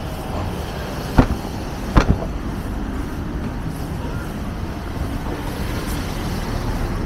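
Busy downtown street traffic: a steady rumble of passing cars, broken by two sharp knocks a little over a second in and at about two seconds, the loudest sounds here.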